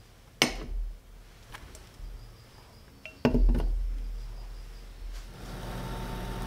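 A steel induction diffuser plate set down on a glass-top induction cooktop with a sharp metallic clink, then a stainless steel moka pot set onto the plate with two quick clinks about three seconds in. Near the end the Iris Ohyama induction cooktop starts heating with a steady electrical hum.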